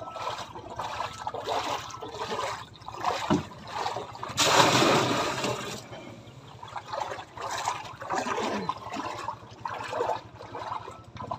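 Water splashing and sloshing as a person wades in shallow river water with a bucket, in uneven bursts, with one louder rush of water lasting over a second about four and a half seconds in.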